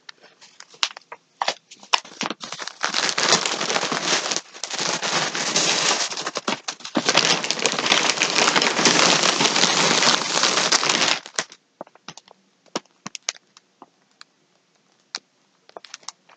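Packaging crinkling and rustling as it is handled, steady for several seconds with a short break, and scattered crackles before and after.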